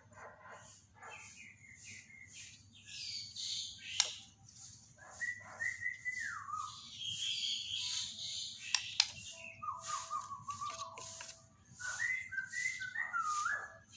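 Songbird singing: clear whistled phrases that hold and then step down in pitch, repeated several times, mixed with quick high chips and sharp clicks.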